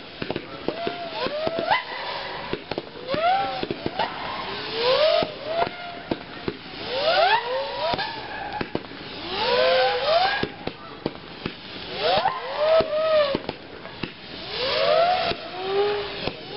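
Crowd of spectators whooping and cheering after a fireworks display. Many overlapping rising-and-falling "woo" calls are mixed with sharp claps and swells of cheering noise.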